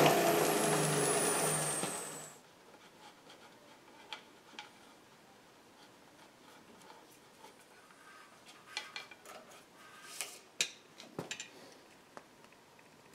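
Drill press spinning down: a loud machine run with a high whine that falls in pitch and dies away after about two seconds. Then faint clicks and rubbing as the round belt and pulley are handled.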